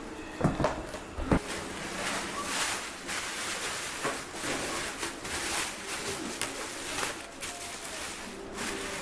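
A few sharp knocks about half a second and a second and a half in, then steady rustling and scraping as the cardboard and plastic packaging around a heavy subwoofer is handled.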